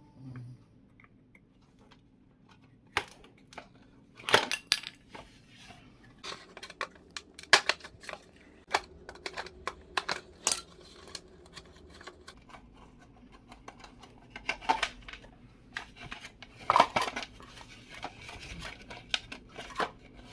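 Irregular clicks, taps and clatters of plastic and metal parts being handled as a mixer grinder's base is taken apart and its switch button is pulled out, with a denser run of knocks near the end.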